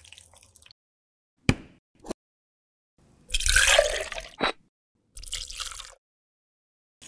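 Vegetable broth poured from a bowl into a blender jar: a loud splashing pour lasting about a second, ending in a sharp click, with a shorter, weaker splash soon after. Two short sharp taps come before it.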